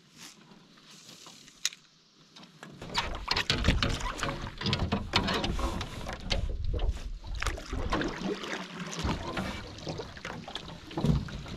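Canoe paddle strokes splashing and churning through lake water, starting about three seconds in after a quiet start with a single click.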